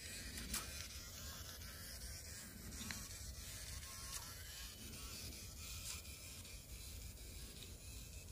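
Faint buzz of the HC-810 toy RC kayak's small electric motors running, over a steady low rumble, with a few faint ticks.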